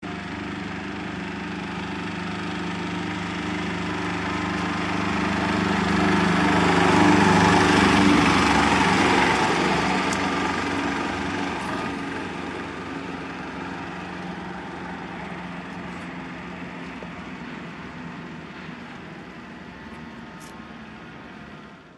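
Aixam Mega Multitruck's small Kubota Z402 two-cylinder diesel engine running as the microcar van drives past, getting louder to a peak about a third of the way in and then slowly fading as it moves away.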